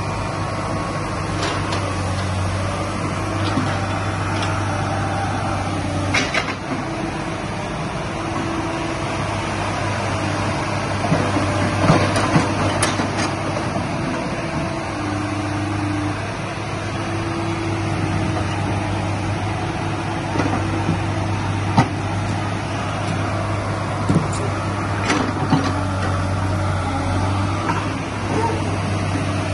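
Hydraulic excavator's diesel engine running steadily, with a hydraulic whine that comes and goes as the boom and bucket are worked, and scattered knocks and clanks.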